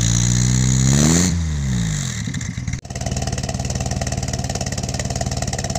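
Colt T120 pickup's petrol engine running through a secondhand Suzuki Satria FU motorcycle muffler: revved up once and let fall back, with the muffler stock. After a sudden cut about three seconds in, it idles steadily through the same muffler with its outlet opened up ("bedelan"), the louder racing-style setup.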